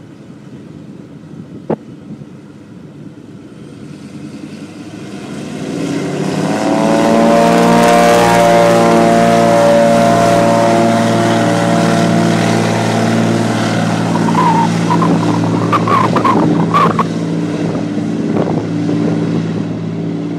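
de Havilland Canada DHC-6 Twin Otter floatplane's twin turboprop engines run up to takeoff power as it accelerates across the water on its floats. The engine and propeller drone builds about four seconds in, then holds loud and steady. A few brief high chirps sound around three-quarters of the way through.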